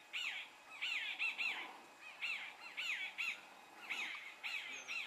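Birds calling: short notes that rise and fall in pitch, repeated in quick clusters several times a second, over a faint background of quieter calls.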